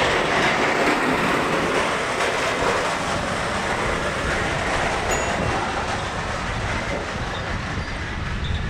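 Steady, loud hissing, rattling noise from a small machine close by, easing off slowly toward the end.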